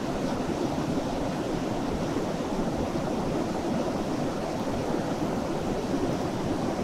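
Steady rushing of a mountain river.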